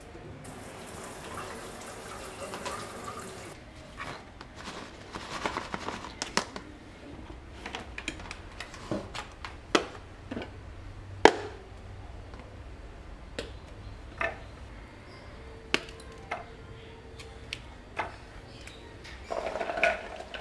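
Kitchen prep handling: a tap runs for about three seconds at the start, then scattered sharp clicks and knocks of plastic containers and an electric food chopper being set down on a wooden counter, and near the end chilies, shallots and garlic rattle from a plastic colander into the chopper's plastic bowl.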